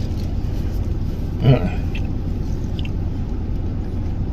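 A man chewing food, with a short voiced sound about a second and a half in, over a steady low hum.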